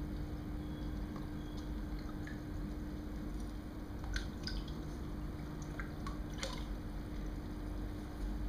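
Aquarium water dripping: a handful of small, sharp drips, mostly in the second half, over a steady low hum.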